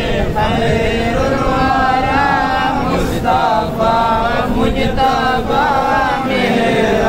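Men's voices chanting a devotional recitation in a melodic line that rises and falls, carrying on with only short breaks for breath.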